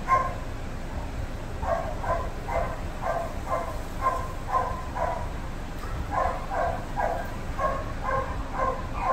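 A dog yipping and whining in a quick series of short high calls, about two a second, starting about a second and a half in.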